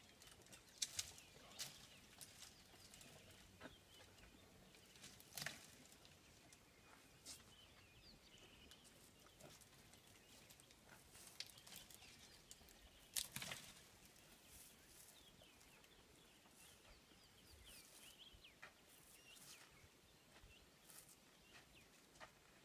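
Quiet bush broken by scattered sharp snaps and cracks of twigs and branches as an African elephant browses on shrubs, the loudest a little past the middle. Faint high chirps sound in the background.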